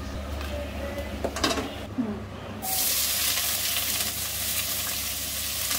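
Chopped onions dropped into hot oil with whole spices in a kadhai: the oil starts sizzling suddenly about two and a half seconds in and keeps up a steady hiss.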